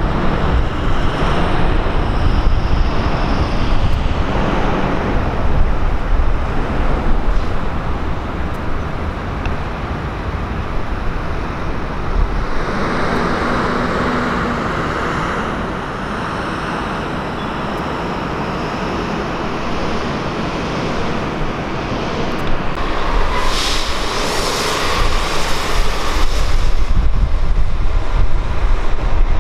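Jet airliner engines running as an aircraft moves on or over the runway: a dense, steady rush of noise with wind buffeting the microphone. The noise swells and grows louder in the last several seconds.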